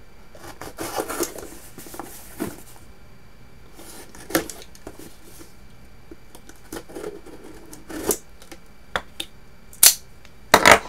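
A mailed cardboard package being handled and worked open by hand: rustling and scraping, broken by several sharp knocks and clicks, the last two close together near the end.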